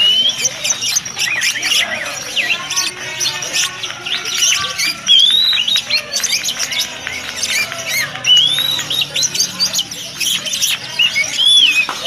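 Oriental magpie-robin (kacer) singing: a fast, varied, unbroken run of whistles, chirps and arching notes.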